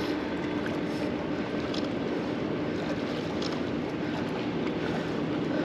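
A steady low hum over a constant wash of wind and water noise.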